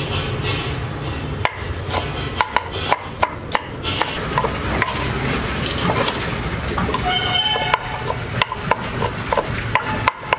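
Cleaver chopping fried chicken pieces on a wooden board: sharp, irregular chops coming in quick bursts of several a second, over a steady low background hum.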